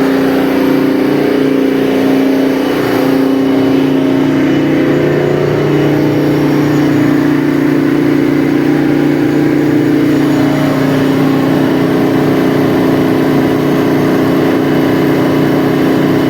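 Detroit Diesel 24V71 twin-turbo two-stroke V24 diesel engine of a 1000 kW Kohler generator set running steadily at its 1800 rpm generating speed.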